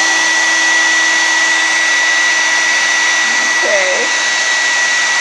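Handheld hairdryer running steadily on hot air, a constant rush of air with a steady high whine over it.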